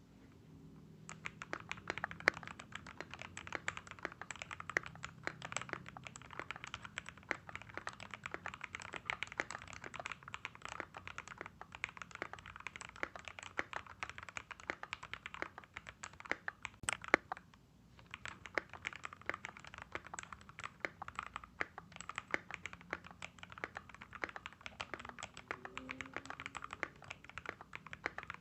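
Continuous fast typing on an NJ68 mechanical keyboard fitted with lubed AKKO X TTC Demon linear box-stem switches. The keys clack in a dense run that starts about a second in, with a brief pause about two-thirds of the way through.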